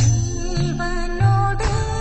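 Background music: a slow melody of held notes over deep bass notes, which strike at the start and again about a second and a half in.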